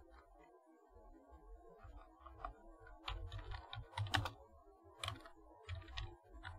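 Typing on a computer keyboard: a run of key clicks, scattered at first and busier from about three seconds in, with a few louder strokes.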